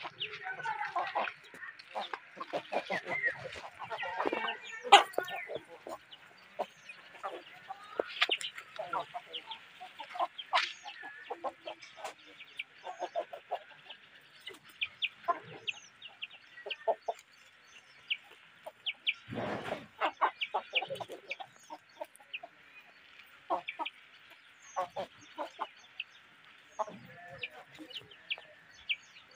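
Free-range native chickens, roosters and hens, clucking in many short scattered calls as they forage, over a steady high hiss. One dull low bump about two-thirds of the way in.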